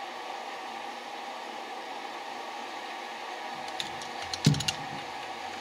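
A steady fan-like hiss, then a handful of light metallic clicks and one louder knock between about four and five seconds in as the carburetor and a piece of wire at its throttle shaft are handled.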